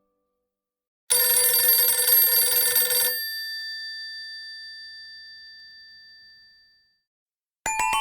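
Palm Pre ringtone with a telephone-bell-like ring: a dense, bright, metallic ring starts about a second in and lasts about two seconds, then a few high tones fade out slowly over the next few seconds. The next ringtone starts just before the end.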